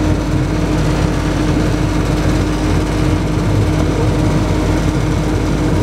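Trackless road train moving along, heard from inside an open-sided passenger car: a steady engine drone with a constant hum over a low rumble.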